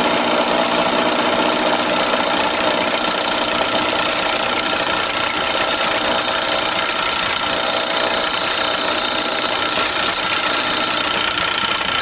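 WF&J Barnes metal lathe running steadily under power, its drive and gearing giving a constant mechanical hum with several steady high tones.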